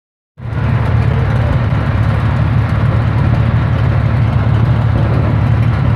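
A 1936 Buffalo fire engine's motor running loudly and steadily as it drives the truck's 1000 gpm fire pump. The sound cuts in abruptly about half a second in.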